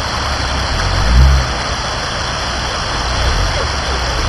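A Jeep Wrangler's engine running low as it crawls through shallow water, over a steady rushing noise, with a brief louder low surge about a second in.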